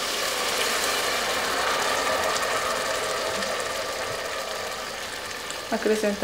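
Broth poured into a pan of hot sautéed vegetables and oil, sizzling and bubbling loudly, dying down slowly over the last few seconds.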